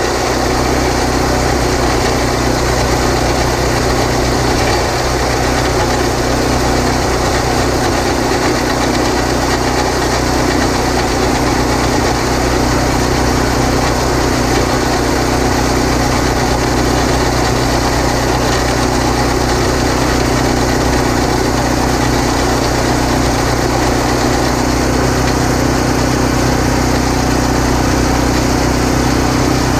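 Horizontal boring machine running steadily, its engine turning the drill rod as a 4 3/8-inch back reamer grinds through a concrete block. The sound is a constant, unchanging machine hum.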